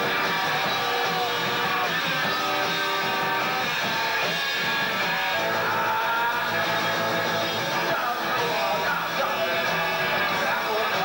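Rock band playing live: electric guitar and drums going steadily.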